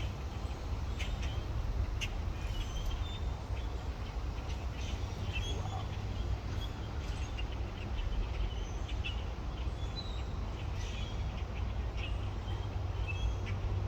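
Many birds calling, with short chirps and calls overlapping at an uneven rate, over a steady low rumble.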